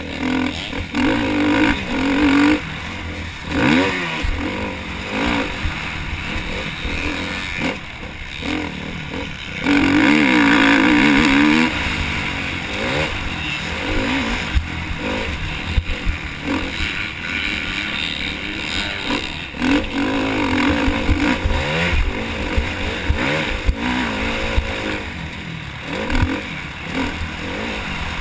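Motocross dirt bike engine revving up and down as it is ridden through corners and down straights, heard from the rider's helmet camera. It is loudest at full throttle for about two seconds, about ten seconds in.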